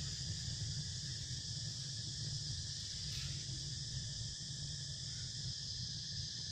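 Forest insect chorus: a steady, unbroken high-pitched drone over a low steady rumble.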